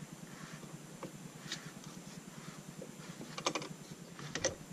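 Small bench vise clamping a shotgun receiver: light metal clicks and rattles as the vise's sliding T-handle is turned and the gun shifts in the jaws, in a few short clusters, the loudest about three and a half seconds in and near the end.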